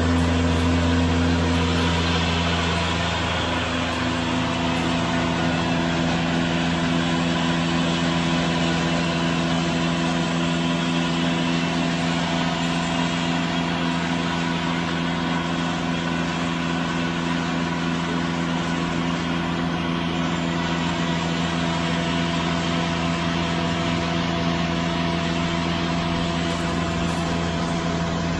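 Electric-motor-driven flour mill (atta chakki) running steadily while it grinds wheat: a constant deep hum under an even grinding rush, with no change in pace.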